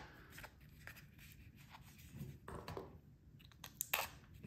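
Light scraping and scattered clicks from a small clear plastic watch-dial case being handled while a pocket-knife blade slits its seal, with two sharper clicks near the end.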